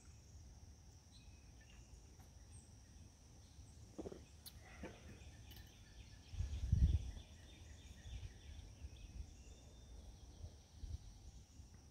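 Faint wild birds chirping over a steady high-pitched hum, with a brief low rumble a little past halfway.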